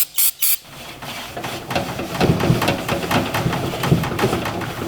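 Three quick spray bursts of cleaner, then steady scrubbing and wiping on the old metal Sears Craftsman toolbox to clean off decades of grime.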